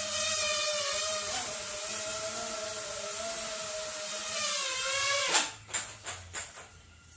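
Small bicopter drone's brushless motors and propellers whining steadily as it hovers and climbs, the pitch wavering slightly. About five seconds in the whine cuts off with a loud impact, followed by several smaller knocks.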